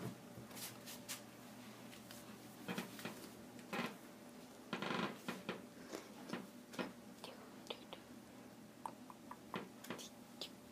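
Plastic sheeting crinkling and rustling under a bath towel as bare feet step onto it and shift their weight, pressing down on a freshly formed sheet of handmade paper. Scattered small clicks and taps, with the loudest rustle about five seconds in.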